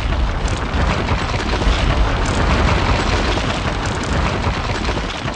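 Sound effect of a wall blasting apart and crumbling: a loud, dense crash with heavy low rumble that starts suddenly and slowly fades.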